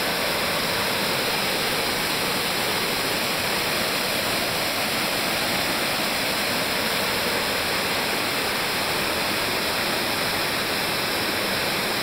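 Waterfall pouring down stepped rock ledges in several drops: a steady, unchanging rush of falling water.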